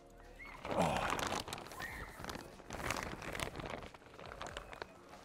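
Clear 6 mil polyethylene greenhouse film crinkling and rustling as it is gripped and pulled taut over the hoop frame. It comes in swells with sharp crackles, the loudest about a second in.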